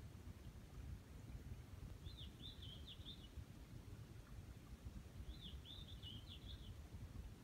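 A small songbird sings a short phrase of quick high notes twice, about three seconds apart, over a faint low rumble.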